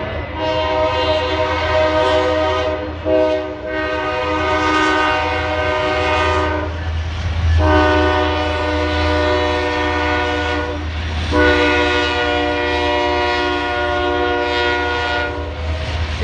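Freight train locomotive's air horn sounding a chord of several notes in a series of long blasts with short breaks between them, over a steady low rumble, heard from inside a car.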